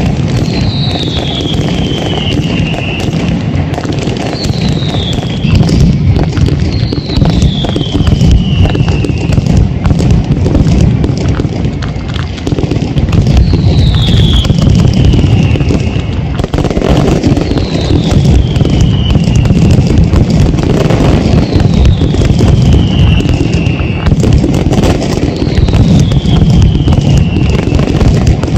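Night mascletà firework display at close range: a continuous, dense barrage of rapid firecracker bangs and crackling. Whistles that fall in pitch cut through it about every two to three seconds.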